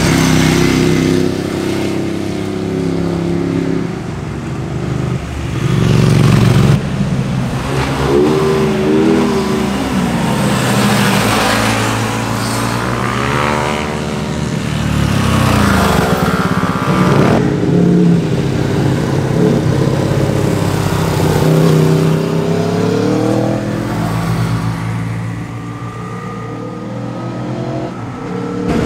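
Sport motorcycles, among them a Ducati 1098S, passing one after another through a bend. Their engine notes repeatedly rise and fall in pitch as they accelerate past, loudest about six seconds in.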